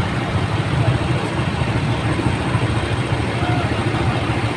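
Fire engine idling with a steady low engine rumble, with faint voices in the background.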